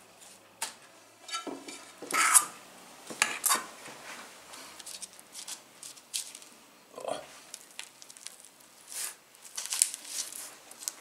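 Metal spoon scraping and tapping as it spreads sticky sushi rice onto a nori sheet on a bamboo rolling mat, in irregular short clicks and scrapes, with a few sharper clinks.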